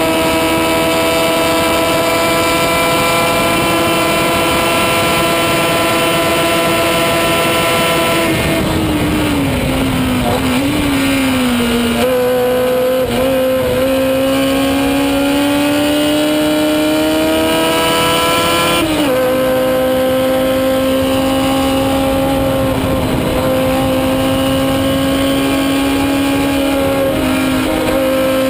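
Onboard sound of a 1970 Chevron B17's 1000cc Formula 3 'screamer' engine at racing revs. The engine holds a high, steady note, then falls away about eight seconds in as the driver lifts. It climbs steadily through a gear, drops sharply at a gearchange about nineteen seconds in, and holds again before falling off near the end.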